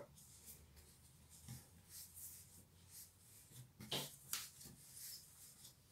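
Hands kneading soft bread dough on a floured countertop: faint, soft pats and presses, with two short, louder thumps about four seconds in.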